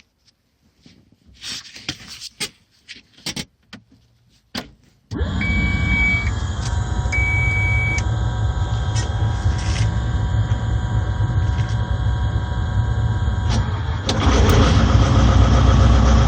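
A few clicks and knocks, then about five seconds in the excavator's Volvo D4D diesel engine starts and runs steadily, its first run after a new water pump and fan belt. Two short high beeps sound just after it starts, and the engine grows louder near the end.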